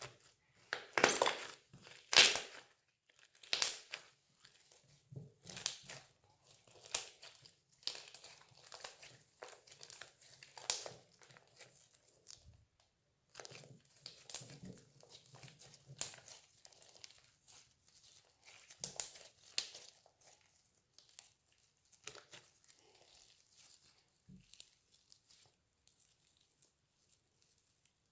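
Homemade slime being squeezed and stretched by hand, with irregular crackling and popping. The sounds are loudest in the first few seconds and grow sparser toward the end.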